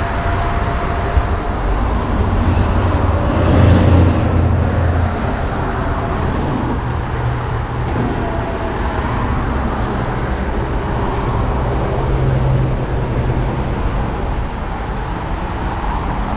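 Electric lift motor of a drop-down ceiling TV running as the TV lowers and then rises back into the hardtop, heard over a steady low rumble.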